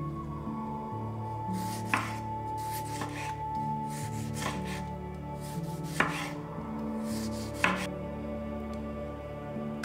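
Chef's knife slicing through a ripe tomato and knocking on a bamboo cutting board: a string of soft cuts with three sharp knocks, about 2, 6 and 7.5 seconds in.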